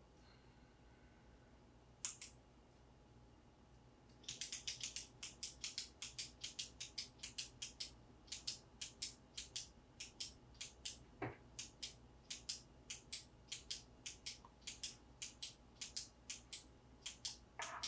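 Retractable pen being clicked over and over, sharp light clicks at about three to four a second, starting about four seconds in after a single click.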